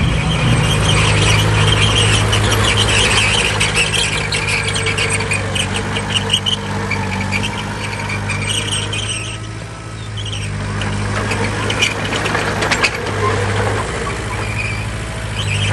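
Heavy diesel earthmoving machinery running steadily, with high metallic squealing and scattered clanks over the engine. The sound eases off briefly about two-thirds of the way through, then picks up again.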